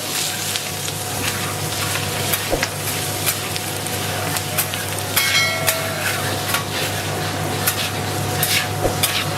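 Food frying and sizzling while it is stirred, with a steady hiss, frequent sharp clicks and knocks, and a steady low hum underneath. About five seconds in there is a brief ringing tone.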